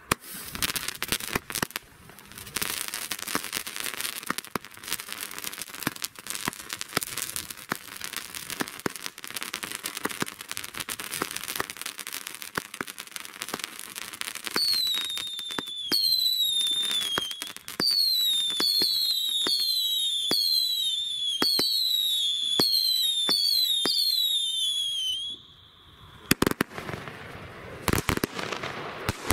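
Lidl 'Matrix' consumer firework battery firing: dense crackling from the shots and crackling stars. About halfway in comes a run of whistles, one after another, each sliding down in pitch, which stop abruptly. A few sharp cracks follow near the end.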